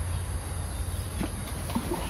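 A hand hoe digging wet mud in a narrow drain: a few short scrapes and squelches about a second in and near the end, over a steady low rumble.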